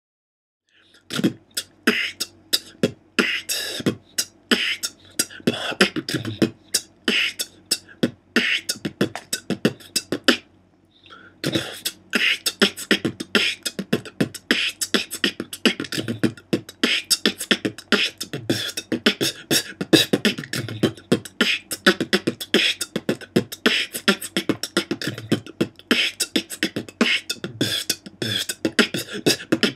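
A beatboxer performs a freestyle beat with clean, well-made mouth drum sounds: deep kick-drum thumps mixed with crisp hi-hat and snare clicks in a fast, tight rhythm. It starts about a second in and breaks off briefly near the middle.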